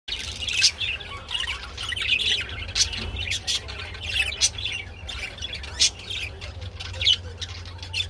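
Budgerigars chattering and warbling, with loud sharp chirps about once a second over a steady low hum.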